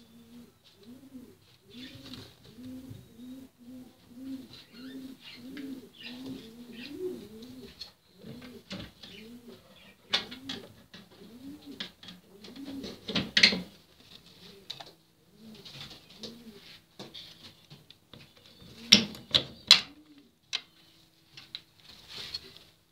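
Racing pigeon cooing: a rapid run of low, repeated coos at about two a second through the first third, then scattered coos. A few sharp knocks cut in, the loudest near the end.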